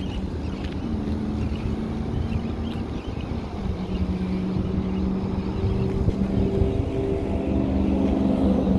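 Small portable generator running steadily: an engine hum whose pitch shifts a little a few times and grows louder toward the end. Wind rumbles on the microphone underneath.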